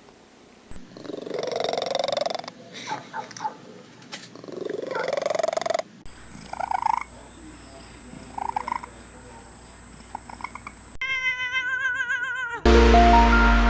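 Domestic cats meowing and yowling in a string of short clips: two long, rising yowls, then a few shorter meows. Near the end a wavering tone sounds briefly, then music starts.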